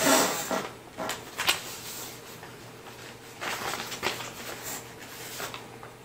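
Rustling as a black fabric bag is handled and set down on a table: loudest in the first half second, then softer rustles off and on.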